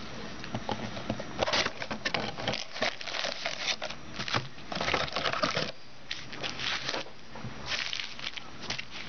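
Plastic shrink-wrap and packaging crinkling and tearing in irregular rustling bursts as a sealed trading-card box is cut open and unwrapped.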